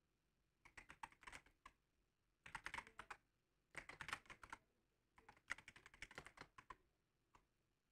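Faint computer keyboard typing: four quick runs of keystrokes with short pauses between them, then a single keystroke near the end.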